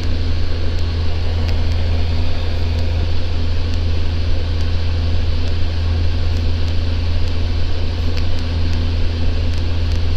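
A Socata TB10 Tobago's four-cylinder Lycoming piston engine and propeller droning steadily in cruise flight, heard from inside the cockpit.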